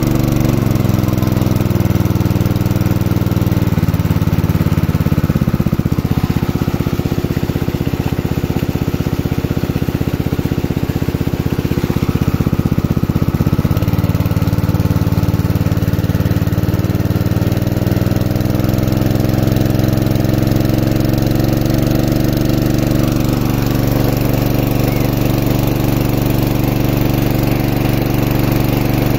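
A Tiger GX200 small single-cylinder four-stroke petrol engine runs steadily at working speed, driving a water pump under load, with the water jet from the pump outlet splashing onto the ground.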